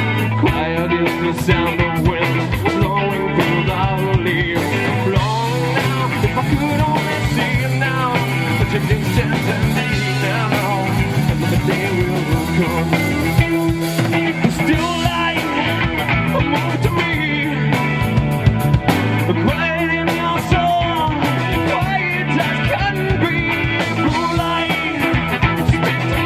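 Live rock band playing: distorted electric guitar, bass and drum kit, with a male lead singer singing over them.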